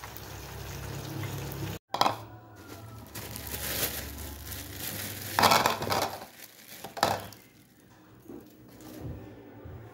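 Hot liquid bubbling and sizzling in a pot for the first couple of seconds. After a cut, a bowl is set down on a granite counter and bread rolls are put into it, giving a few sharp knocks about two, five and a half and seven seconds in, with quieter handling noise between.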